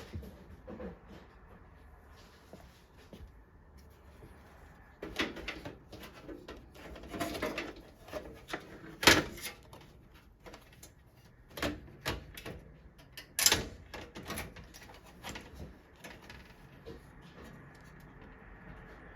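Clicks, knocks and rustling of computer parts being handled and fitted into a desktop PC, with a few sharper knocks in the middle.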